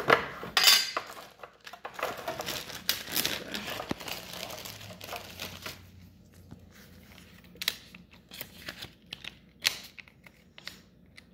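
Crinkling and rustling of thin plastic packaging being handled, then scattered light taps and clicks as trading cards are set down on a playmat.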